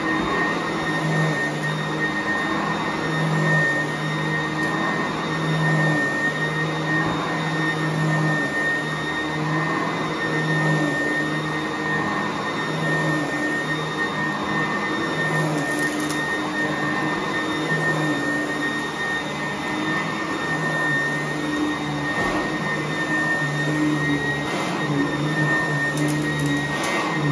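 Sanitaire upright vacuum running on carpet: a steady motor noise with a constant high whine, and a low hum that comes and goes every second or so.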